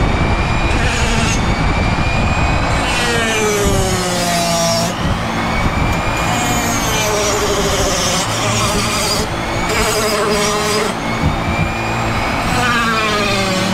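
Flexible-shaft rotary tool grinding cork with a rounded burr. Its whine slides up and down in pitch as the bit bites into and eases off the cork, over a steady rushing noise.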